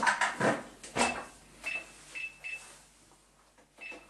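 Thermomix being set up: a clatter of the lid and measuring cup going on, then a few short, high, single-pitch beeps from the control panel as the time and temperature are set.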